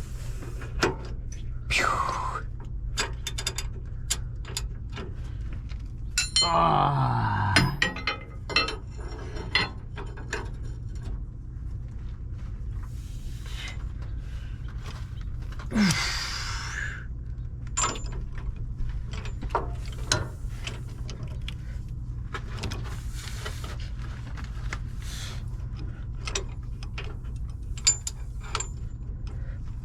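Metal hand tools clinking and clanking in irregular taps and knocks while working a shock absorber mount bolt loose, over a steady low hum.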